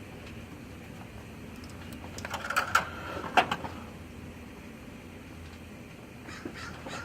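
Scattered sharp clicks and light knocks of small parts being handled, clustered about two to three and a half seconds in, with a few lighter clicks near the end.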